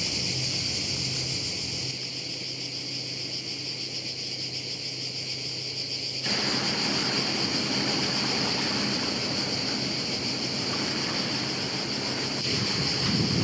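Steady, high-pitched, unbroken chorus of cicadas. About halfway in, a louder, even rushing noise joins it.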